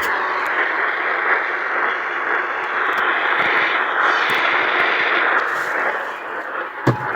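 AM radio reception static: a steady, loud hiss of noise with scattered faint crackles between the EAS attention tone and the spoken test message. It eases off slightly near the end, where there is a short low thump.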